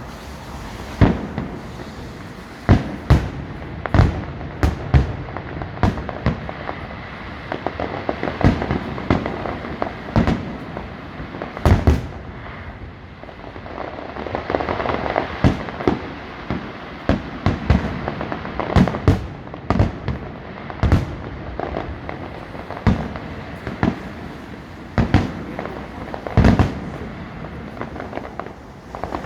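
Aerial fireworks display: a long, irregular series of sharp bangs from bursting shells, sometimes several a second, over a steady background noise.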